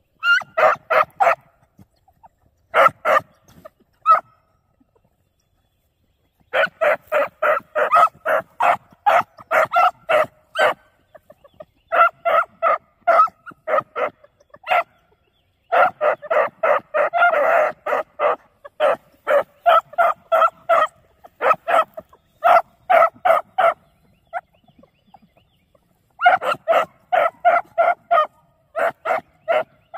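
Beagle pups giving tongue on a rabbit's scent trail: quick yelps, about three a second, in runs broken by short pauses.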